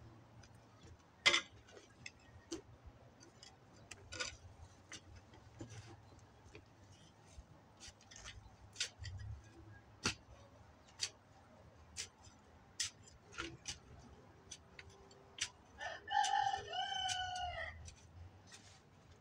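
Digging fork working garden soil: scattered clicks and scrapes as the tines go in and turn the dirt, the sharpest about a second in. About 16 seconds in a rooster crows once, a call of about two seconds.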